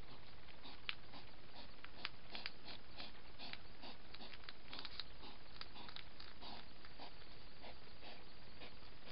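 Hedgehog foraging in grass: faint, irregular clicks and rustles, thickest in the middle, over steady microphone hiss.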